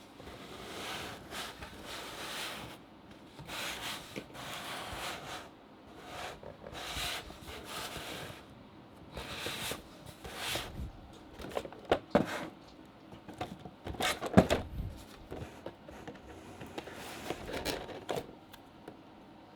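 Cardboard Funko Pop box being handled and turned in the hands: repeated rubbing and scraping swishes, with a few sharper knocks about twelve and fourteen seconds in.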